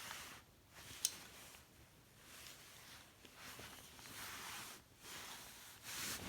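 Faint handling noises: soft rustling and scraping, with one sharp click about a second in.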